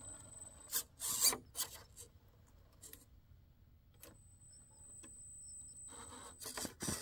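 RC rock crawler's tyres scraping and rasping against the rock in short bursts as it climbs, the loudest a little over a second in. A thin, steady high whine from the electric drive comes in twice.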